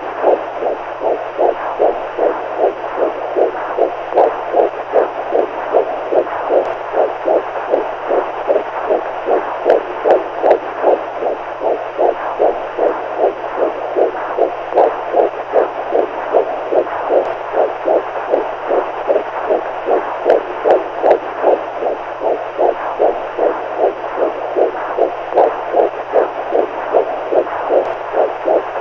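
Heartbeat sound playing as a steady, even rhythm of soft beats over a constant low hum.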